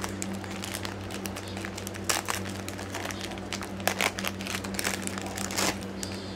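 Small plastic bag crinkling and crackling as it is handled in the fingers, with louder crackles about two seconds in, around four seconds and near the end. A steady low hum sits underneath.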